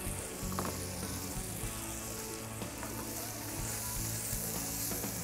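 Quail breasts, onions and bell peppers sizzling in a skillet on a portable gas burner, a steady frying hiss, with a few light knife clicks on a cutting board near the start.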